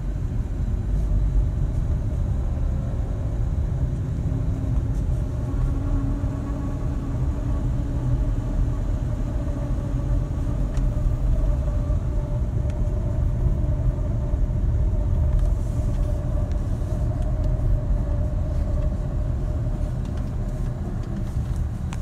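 Hyundai ix35 driving, heard from inside the cabin: low road and tyre rumble with a steady whine from the front of the car running over it. The whine remains with new front hub bearings fitted, and the mechanic suspects the transfer case.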